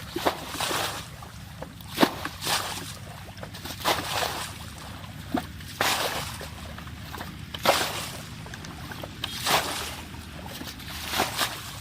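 Water splashing and sloshing in regular strokes about every two seconds, each stroke opening with a sharp knock, around a small wooden fishing boat.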